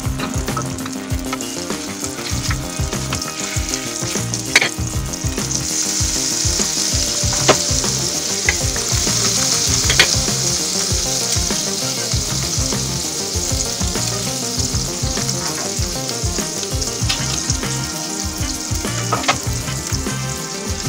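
Chopped walnuts and garlic sizzling in melted butter in a frying pan. The sizzle swells through the middle stretch, and a few sharp taps cut through it.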